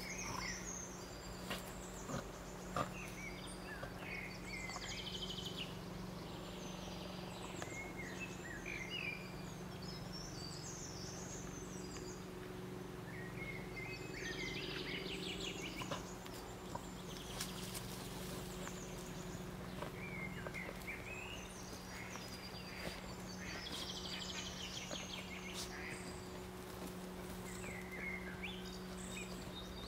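Several songbirds singing in short, varied phrases throughout, over a steady low hum.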